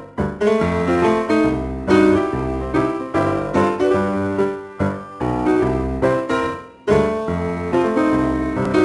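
Background music: a piano or keyboard tune with a bass line, its notes struck and fading in a steady rhythm.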